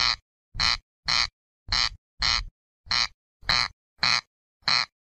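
Corncrake (Crex crex) giving its harsh 'crex crex' call: a short rasp repeated about twice a second, with silence between.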